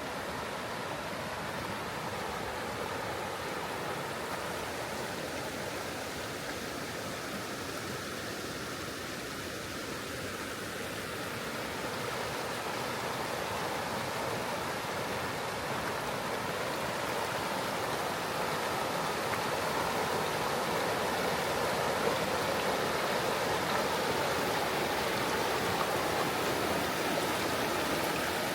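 River water flowing, a steady rushing that grows gradually louder through the second half.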